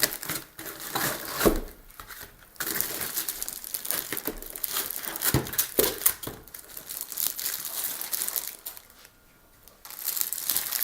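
Packaging crinkling and rustling as a laptop is handled and lifted out of its box, in irregular spells with a short lull near the end.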